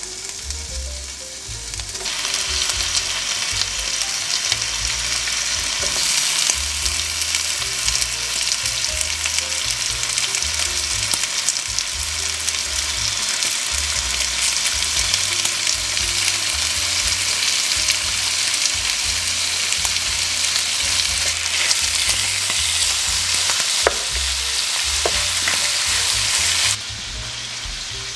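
Bacon pieces sizzling as they fry in a hot nonstick pan, a steady crackling hiss that rendering fat gives off. It swells about two seconds in and cuts off suddenly near the end, with a couple of sharp clicks shortly before.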